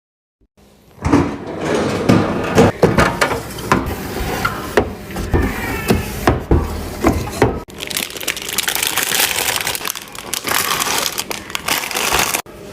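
Restocking handling sounds: a run of sharp clicks and knocks as snack and drink items are set down and moved, then, from about eight seconds in, a denser steady rustling.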